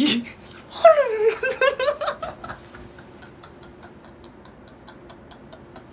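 A man laughing: a high laugh that slides down in pitch in quick pulses and dies away about two and a half seconds in. After it, a faint regular ticking, about four ticks a second.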